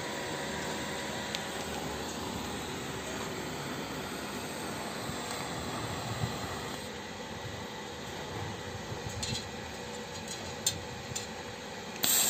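TIG welding arc on stainless steel with filler rod, a steady hiss with a faint hum, which stops about seven seconds in. A few light metallic clicks follow.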